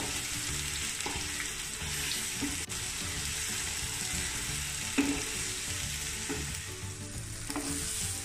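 Indian gooseberry (amla) paste frying in ghee in a nonstick pan on a low flame, sizzling steadily while a wooden spatula stirs it. A few soft scrapes and knocks of the spatula against the pan come through.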